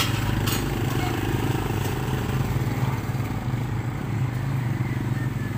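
A steady low mechanical hum, like an engine running, with two short clicks near the start.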